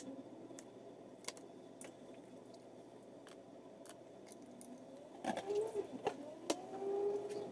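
Faint scattered clicks and taps of a kitchen knife cutting orange and apple on a plastic cutting board, and of fruit pieces being set into plastic containers, over a low steady hum. From about five seconds in, a few faint wavering pitched sounds join the taps.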